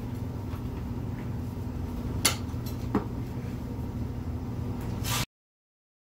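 A steel tire iron clinks twice against a dirt-bike wheel rim, a bit over a second apart, while the tire bead is levered onto the rim, over a steady low hum. The sound cuts out abruptly near the end.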